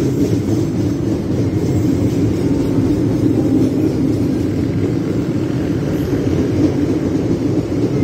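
Stainless-steel intercity passenger train passing close through a station at speed: a steady, loud rumble of the coaches' wheels on the track.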